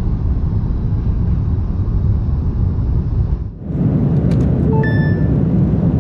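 Steady rumble and hiss of an airliner cabin in flight, dropping away briefly a little past halfway and then resuming. A short chime-like tone sounds about five seconds in.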